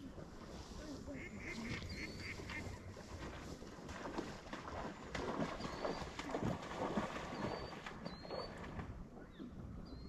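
A flock of waterfowl calling, a mix of goose honks and duck quacks, busiest in the middle, with a few short high chirps over it.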